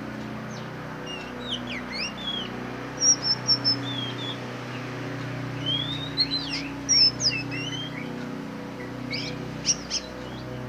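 Black magpie-robin singing: three bursts of varied clear whistles and sharp up- and down-sweeping notes, with pauses between, about a second, six seconds and nine seconds in. A steady low hum runs underneath.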